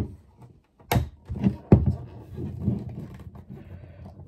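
Hollow plastic knocks and clunks of an empty plastic water filter pitcher and its lid being handled and tilted over. There is a sharp knock about a second in and another just before two seconds, with softer thumps and rubbing in between.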